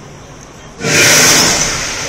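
A gas-fired flame tower at Crown Melbourne shooting a fireball: a sudden loud whoosh about a second in that fades slowly.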